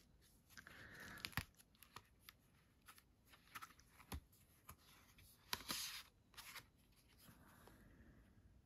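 Faint rustling and small clicks of cardboard disc-book pages and paper sleeves being handled and turned, with a disc slid out of its sleeve.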